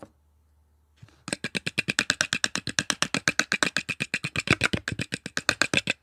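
A metal fork whisking a thin liquid in a ceramic bowl, its tines clicking rapidly and evenly against the bowl at about ten strokes a second, starting a little over a second in.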